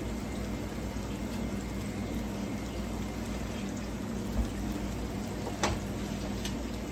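Seafood locrio (rice) simmering in a wide pan on a gas stove as its last liquid cooks off: a steady bubbling hiss, with a soft knock about four seconds in and a sharp click a second later.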